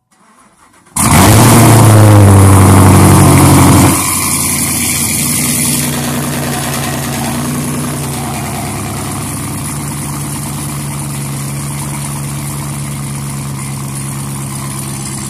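2017 Camaro SS's 6.2-litre LT1 V8 with a full exhaust, cold-started: brief starter cranking, then it catches about a second in with a loud flare that falls in pitch. It drops back sharply about four seconds in and settles into a steady cold idle that eases down a little over the next few seconds.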